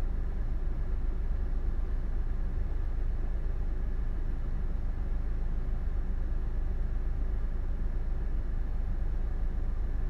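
Steady low rumble of background noise, even throughout, with no clicks or knocks.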